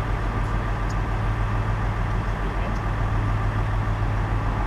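Steady engine hum and road noise of a Ford-chassis Class C motorhome driving along, heard from inside the cab, with a few faint clicks over it.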